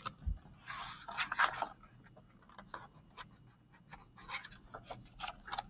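A picture book being handled and its page turned: a dull bump, then paper rustling and scraping about a second in, with more rustles and small clicks near the end.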